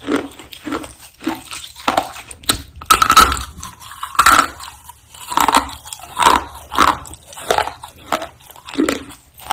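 A person biting and chewing a roasted clay roll, with dry crunches about one to two a second; the loudest come about three and four seconds in.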